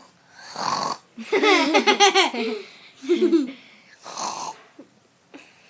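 A child laughing in a few bursts, with breathy gasps before and after the longest burst.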